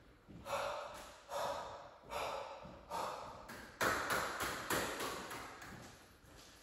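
Table tennis ball clicking against paddles and the table in a short rally: sharp, ringing clicks about one every second. Near the middle comes a louder hit, followed by a quicker run of clicks that come closer and closer together.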